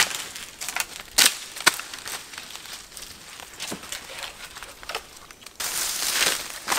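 Wooden branches cracking and dry leaf litter crunching as long branches are handled and dragged over the forest floor. Two sharp cracks come about a second in, half a second apart, then scattered crackling, and near the end a louder continuous rustling scrape.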